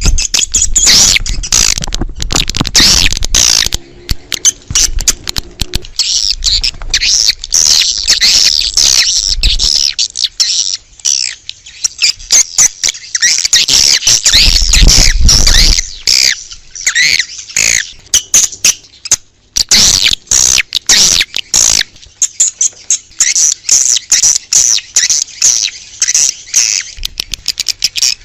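Swiftlets twittering: a dense, unbroken chorus of high, rapid chirps of the kind played to lure swiftlets to a nesting house, with a low rumble underneath at times.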